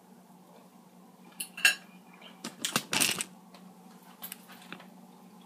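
Metal cutlery clinking and scraping against a dinner plate: a sharp clink about one and a half seconds in, then a quick cluster of clinks and rattles around three seconds in.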